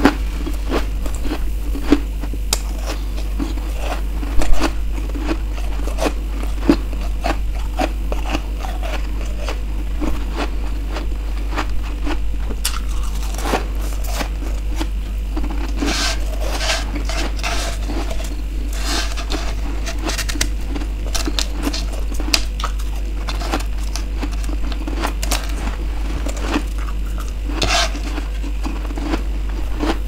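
Close-up crunching and chewing of soft freezer frost: irregular crisp crackles as frost chunks are bitten and chewed, with a louder crunch about four seconds in. A steady low hum runs underneath.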